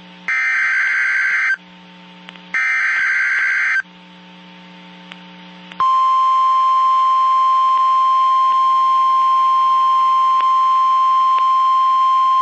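Emergency Alert System SAME header: two raspy digital data bursts of about a second each, a second apart. About six seconds in comes the steady single-pitch 1050 Hz NOAA Weather Radio attention tone, which signals that a new warning follows.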